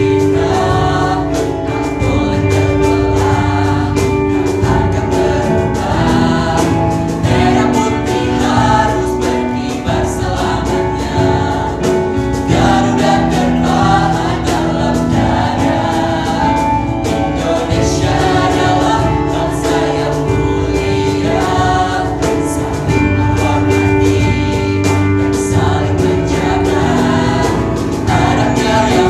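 Mixed vocal group of high-school singers, male and female voices together, singing a song in harmony with instrumental accompaniment from keyboard and violin.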